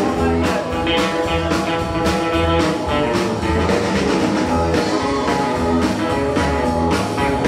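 Live rock-and-roll band playing: a Telecaster-style electric guitar over bass and a drum kit keeping a steady beat of about two hits a second.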